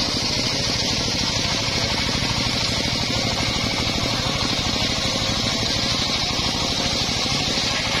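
A homemade circular sawmill's blade is ripping a gmelina (white teak) board, making a steady high hiss in the cut that stops right at the end. Beneath it runs the driving engine's steady low pulsing.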